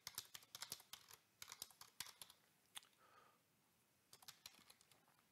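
Faint keystrokes on a computer keyboard: quick runs of clicks, with a pause of about a second past the middle.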